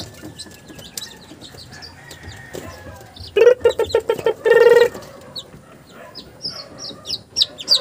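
Newly hatched chicks peeping, with a run of short, high, falling peeps near the end. About three and a half seconds in, a louder, lower chicken call sounds twice in quick succession.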